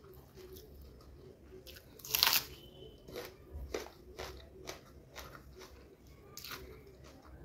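A person chewing a mouthful of chicken biryani, with one loud crunch about two seconds in, then a run of short, sharp chewing clicks.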